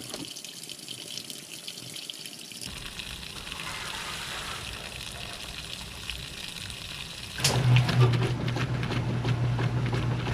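Washing machine with its freshly unjammed water pump, running again: water rushes steadily, and about seven seconds in a motor starts with a steady low hum over the water noise.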